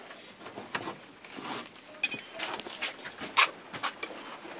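Scattered clicks and knocks of metal tools and door hardware being handled, with three sharper knocks in the second half over a low rustle.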